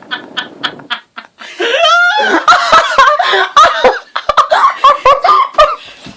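Hard, uncontrolled laughter: quick breathy gasps at first, then from about a second and a half in, loud high-pitched laughing that wavers and breaks up, dying down near the end.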